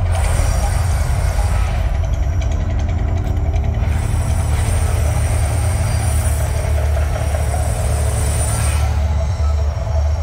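Mirage Volcano eruption show: a deep, steady rumble with two long hissing stretches carrying a thin high whistle. The first hiss runs for about the first two seconds, the second from about four to nine seconds in.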